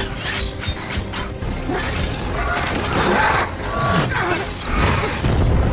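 Dense action-film sound effects: crashing and shattering debris and clanking metal over a deep, continuous rumble, with impacts following one another throughout.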